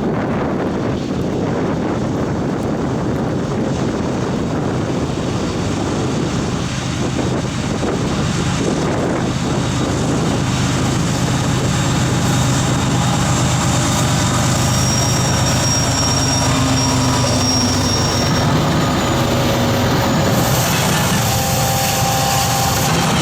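Diesel-hauled freight trains passing: a steady loud rumble of locomotive engines and rolling cars, with a thin high whine about two-thirds of the way through.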